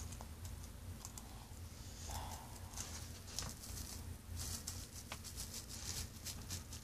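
Chewing a big mouthful of six stacked Ritz crackers: a run of faint, crisp crunches and crackles at irregular intervals, over a low steady hum.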